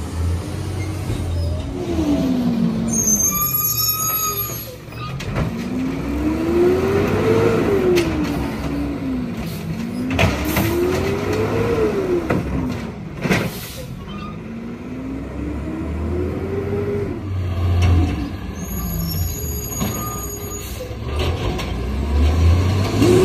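Natural-gas engine of a 2011 Peterbilt 320 garbage truck revving hard about four times, each rev climbing and falling back, to drive the Amrep automated side-loader arm as it lifts and dumps a cart. There are metal knocks from the dumping cart, and short high brake squeals a few seconds in and again near the end.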